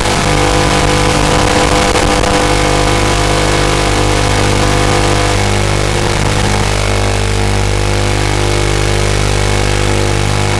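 A loud, steady buzzing hum of several constant tones over a hiss, unchanging in pitch.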